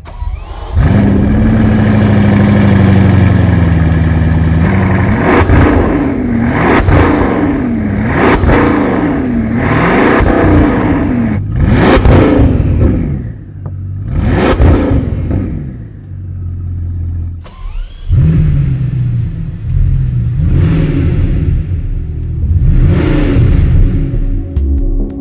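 Bugatti Chiron Sport's 8.0-litre W16 engine: it comes in suddenly about a second in, holds a steady note for a few seconds, then is revved again and again in quick rising and falling blips through to the end.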